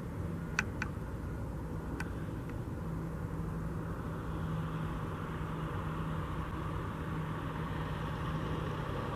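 A motor vehicle running nearby with a steady engine hum, and road noise growing louder from about halfway through. A few faint clicks come in the first two seconds.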